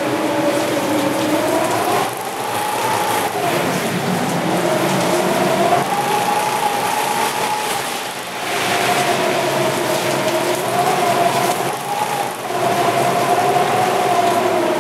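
Typhoon wind howling: a whistle that slowly rises and falls in pitch over a steady rush of gusting wind.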